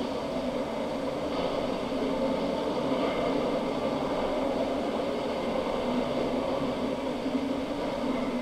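Steady background rumble and hiss with no speech or music; it does not change.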